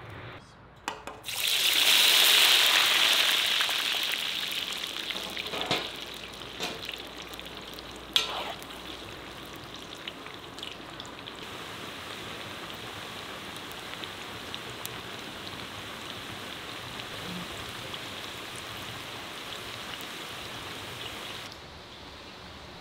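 Potato fries dropped into hot oil in a kazan: a sudden loud sizzle about a second in that slowly settles into a steady frying hiss, with a few sharp clicks along the way.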